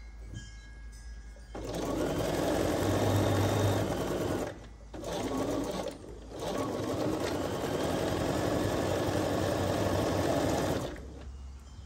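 Computerized electric sewing machine stitching a seam through quilt pieces. It starts about a second and a half in, pauses briefly twice, and stops near the end.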